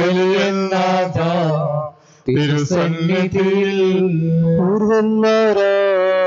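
A man's voice singing a slow Malayalam Syro-Malabar liturgical hymn, long held notes that step from one pitch to the next, with a short break for breath about two seconds in.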